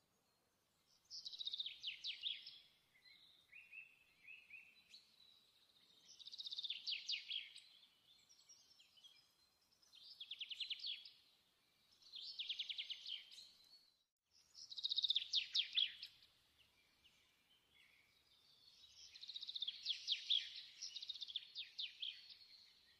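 A songbird singing high, rapid trilled phrases, each one to three seconds long, repeated with short pauses between them.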